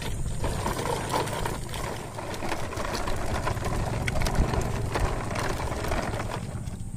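Chain of coupled plastic toy trucks rolling over gravel and rough concrete, their wheels and trailers rattling with many small clicks and knocks.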